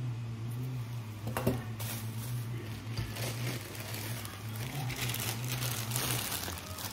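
Plastic packaging and bubble wrap crinkling as they are handled and unwrapped, over a steady low hum from a shower running elsewhere in the house.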